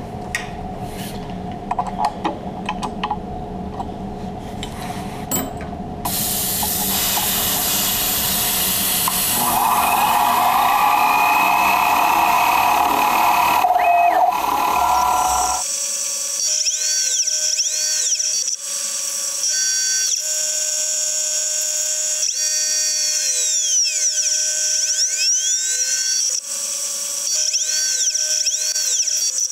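G0704 CNC milling machine running a chamfer-mill pass on an aluminium bracket. It starts with scattered clicks, and a loud rushing noise sets in about six seconds in. From about the middle, a steady high spindle whine carries motor tones that sweep up and down in pitch over and over as the axes speed up and stop.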